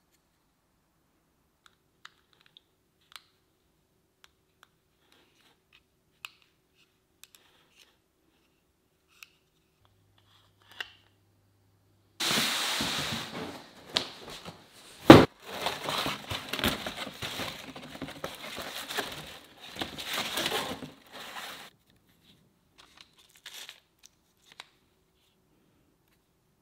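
Rustling and rummaging in a cardboard box, with one sharp knock partway through. Before and after it, a few faint clicks of small pieces being handled.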